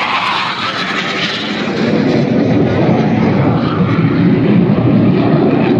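Aerobatic display jets flying over in formation: a loud rushing engine noise that drops from a high-pitched hiss to a deeper rumble about two seconds in as the aircraft pass.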